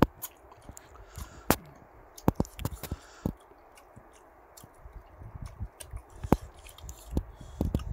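Close-up chewing and mouth sounds of a man eating raw beef with weaver ants, with irregular sharp wet clicks, loudest about a second and a half in and again near six seconds.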